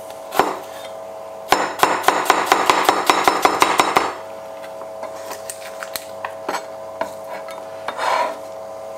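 A chef's knife chopping an onion on a cutting board: a quick run of knife strikes, about six a second, for about two and a half seconds, then a few scattered taps.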